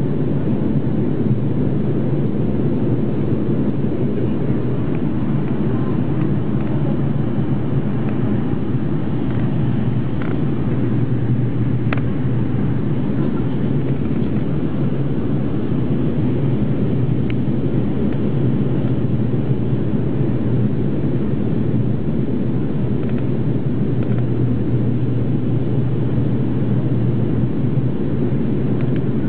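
Fokker 50 turboprop cabin noise: the propellers and turboprop engines make a steady drone with a strong deep hum, heard from a seat beside the engine during the descent to land.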